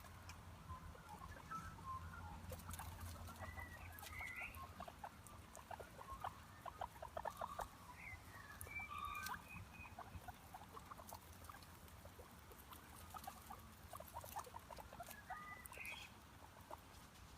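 Faint marmot calls: short chirps a few times, with stretches of rapid soft ticking between them over a low steady hum.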